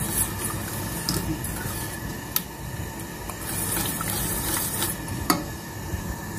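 Wire whisk stirring thick tomato puree in a stainless steel pot, its wires swishing through the sauce and scraping the pot, with a few clicks and a sharp clink about five seconds in as it knocks the metal.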